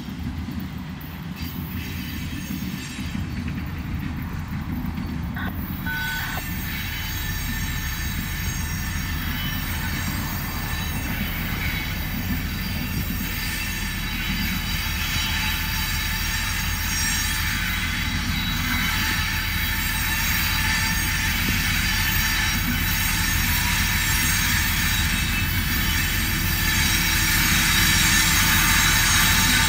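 CSX's new EMD ST70AH (SD70ACe-T4) Tier 4 diesel locomotives approaching with a freight train, their engines' low drone growing steadily louder. A high steady squeal from the wheels rises with it.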